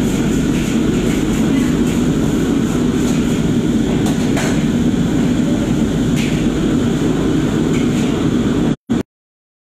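Steady loud roar of high-pressure wok burners and the kitchen exhaust hood, with a few sharp metal clanks of a utensil against a wok. The sound cuts out abruptly near the end.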